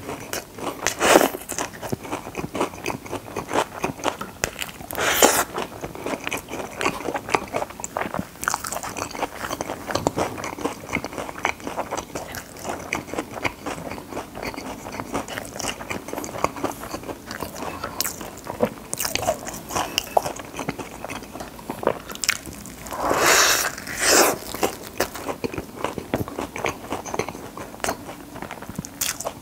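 Close-miked chewing of a fried chicken burger: crisp crunching of the breaded chicken patty through the soft bun, with a dense crackle of small crunches and a few louder bites, about a second in, around five seconds and again near the end.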